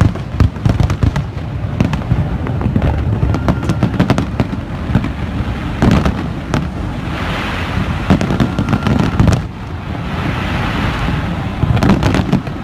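Large aerial fireworks display: a continuous, irregular barrage of booming shell bursts, many overlapping, with patches of crackle in the second half.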